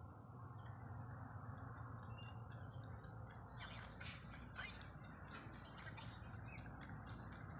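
Rabbits chewing food: rapid small crunching clicks starting about three and a half seconds in, over a steady low hiss.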